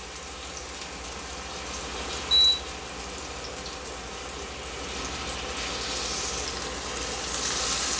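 Pork tenderloins searing in oil in an enameled cast-iron skillet: a steady sizzle that grows louder over the last few seconds. A single short high beep sounds about two seconds in.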